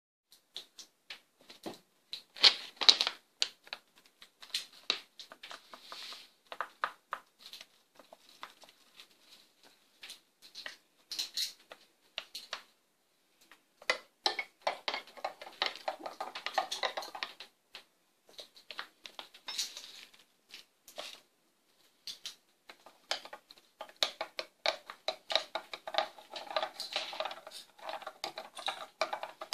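Metal spoon clinking and scraping against a ceramic mug while stirring chocolate powder into a drink, in quick runs of ticks about halfway through and again over the last third. In the first half, scattered clicks and taps.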